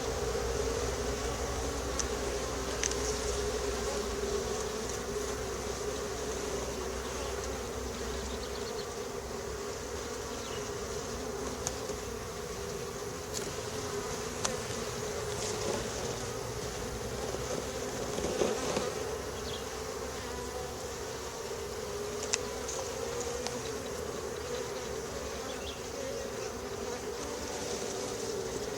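Honeybee colony buzzing steadily in an open hive during a frame inspection, with a few faint clicks; a low rumble underneath stops about eight seconds in.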